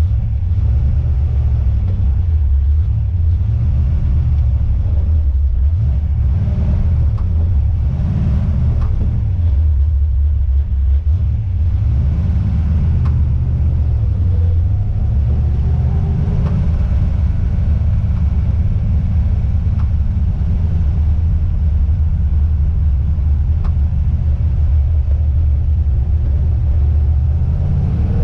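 Car driving at low neighbourhood speed, heard inside the cabin: a steady low rumble of engine and road, with a few faint clicks from the rear suspension over bumps. The owner suspects the coilovers.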